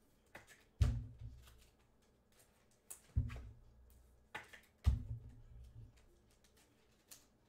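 Trading cards and packs handled on a tabletop: three dull thumps with light clicks between them.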